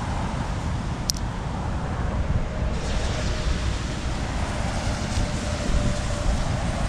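Wind buffeting the microphone: a steady low rumble with hiss, and one faint tick about a second in.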